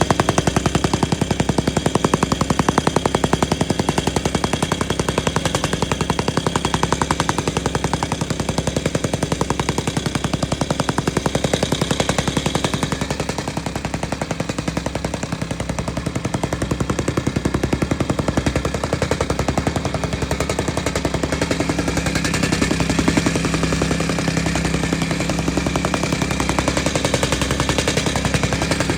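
MEIWA RT-50R gasoline tamping rammer running, its petrol engine driving the foot in a fast, steady pounding rhythm. The pounding eases slightly about halfway through, then picks back up.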